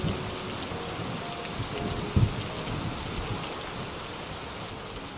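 Steady rain falling, an even hiss, with a short low thud about two seconds in.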